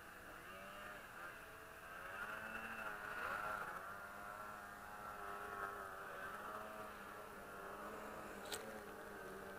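Snowmobile engines, faint, revving with their pitch wavering up and down as the machines work across the slope. A single sharp click about eight and a half seconds in.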